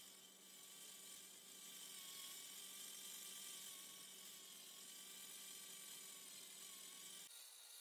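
Faint steady whir and hum of a small electric motor spinning a lure blank in its chuck; the low hum cuts off suddenly near the end.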